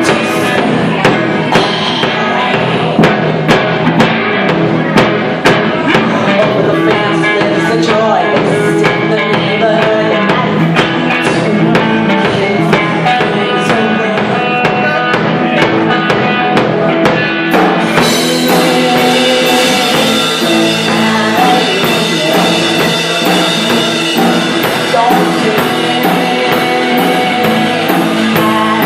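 Rock band playing live: drum kit with steady beats under electric guitar and bass. About two-thirds of the way through the sound gets fuller and brighter as cymbals come in.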